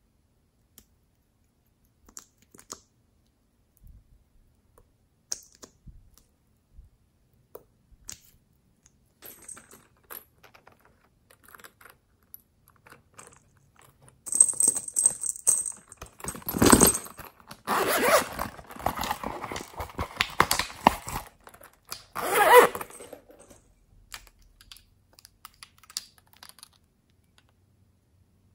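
Close-up handling of small plastic cosmetics and a zippered fabric pouch: scattered light clicks and taps at first, then, about halfway through, several seconds of louder rustling and scraping in three bursts as the pouch is handled.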